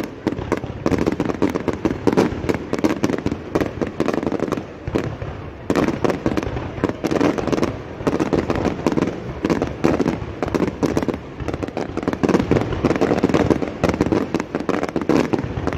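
Fireworks display going off: a dense, continuous run of cracks and pops, with a brief lull about five and a half seconds in.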